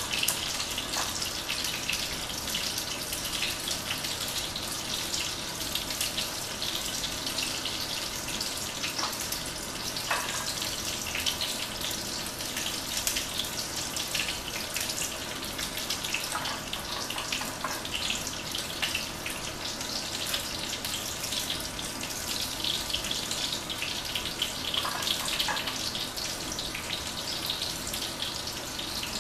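Halibut pieces frying in hot oil in a pan: a steady sizzle full of fine crackling, flaring briefly a few times as more floured pieces are laid in.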